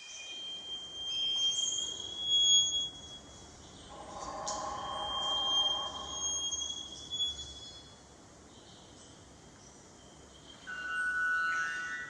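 Recorded bird sounds played back through loudspeakers as part of an art installation. They are long, high whistling tones, with a lower tone layered under them about four seconds in and another short set of tones near the end.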